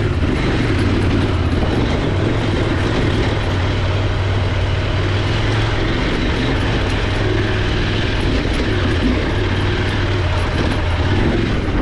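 Motorcycle engine running steadily while being ridden off-road, with a constant hum and a broad noisy rush over it.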